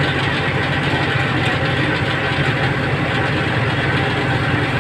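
Heavy truck engine idling steadily, a constant low rumble.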